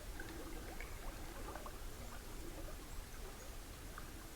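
Faint, steady rush of river rapids, with a few small ticks and crackles over it.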